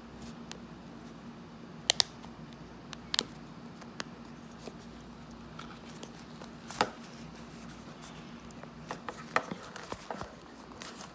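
Sharp plastic clicks and scraping as a replacement ear cushion's plastic ring is pried and pressed onto the retaining clips of a Bose QuietComfort 35 earcup with a plastic pry tool. A few separate clicks come first, then a quick run of them near the end, over a steady low hum.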